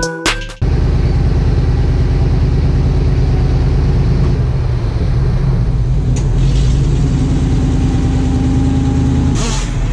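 An engine running steadily, after a burst of electronic music cuts off about half a second in.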